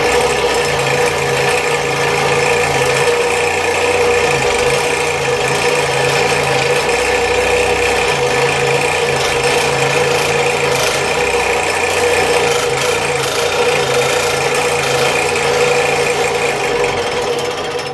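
Scroll saw running steadily, its blade resawing a thick poplar spoon blank lengthwise on edge, through the thinner handle part. Steady hum and cutting noise throughout, dying away at the very end as the cut finishes and the saw stops.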